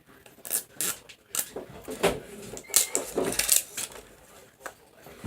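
Plastic packaging crinkling and rustling in irregular sharp crackles as a blind-packaged squishy toy is opened.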